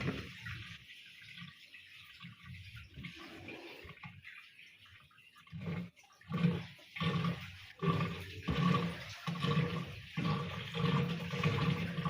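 Wash water draining out of a twin-tub washing machine through its drain hose. It is fairly quiet at first, then from about halfway it grows louder and comes in uneven surges.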